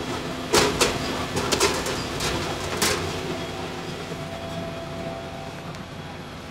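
Several sharp clicks and knocks in the first three seconds over a steady machine hum, which slowly fades.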